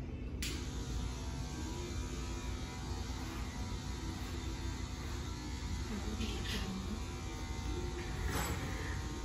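Steady low electric hum, joined about half a second in by a faint, even whirring hiss.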